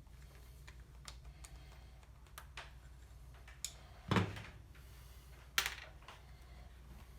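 Light clicks and taps of small metal parts and tools being handled during a starter motor teardown, with two louder knocks about four and five and a half seconds in, over a steady low hum.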